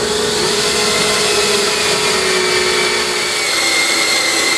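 Cordless drill running steadily, boring a small pilot hole through a steel flat-bar rail.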